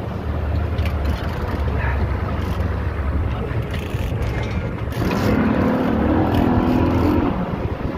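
A boat's engine running under wind and water noise while a hooked marlin is being fought. About five seconds in the engine note grows louder for about two seconds as the boat powers up.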